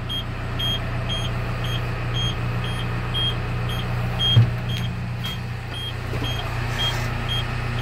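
Crane's engine idling as a steady low hum in the cab, with a short high electronic beep repeating about twice a second. One thump about halfway through.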